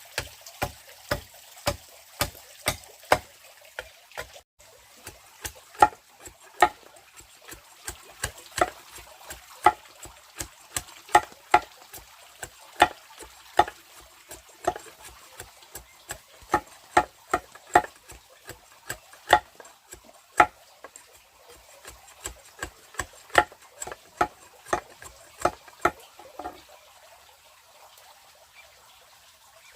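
Steady, rhythmic strikes, about two a second, stopping suddenly about 26 seconds in, over a faint trickle of water.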